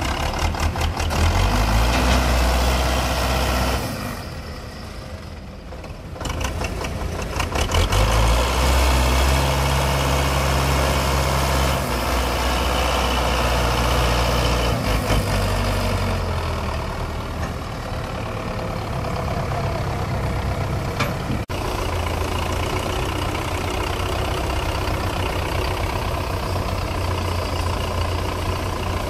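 Belarus 510 tractor's diesel engine running, easing off for a moment about four seconds in, then picking up again and settling into a steady run for the rest.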